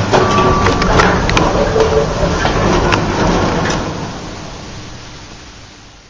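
1975 MAN elevator car travelling between floors: the cab runs with a low rumble and a clatter of clicks and rattles. The noise dies away over the last couple of seconds as the car slows for its stop.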